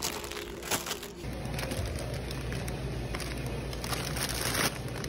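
Plastic ice cream wrappers crinkling as a hand moves frozen packs around in a chest freezer, loudest near the end. A low steady hum comes in about a second in.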